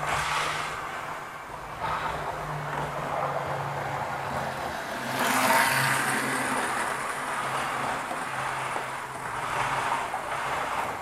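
Model train running on the layout's track, its wheel rattle and motor noise swelling loudest as it passes close by about five seconds in, over a steady low hum.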